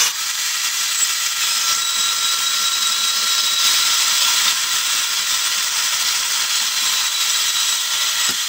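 Portable metal-cutting bandsaw, mounted upright in a homemade stand, cutting through a rusty steel bar: a steady, high-pitched cutting hiss with faint steady whining tones from the blade and motor.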